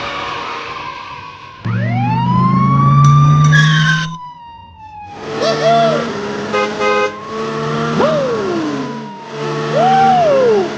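Siren sound effects: short rising-and-falling wails repeating about every two seconds over a steady horn-like drone. They are preceded by one long whistling glide that rises and then slowly falls.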